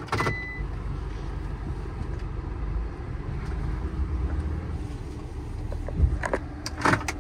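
Inside the cab of a Ram ProMaster van on the move: a steady low rumble of engine and road noise. A few short knocks come near the end.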